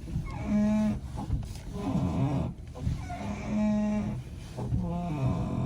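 Steering on a 2013 Hyundai Sonata making a low, pitched groan, four times in about five seconds. The noise was traced to the outer tie rod.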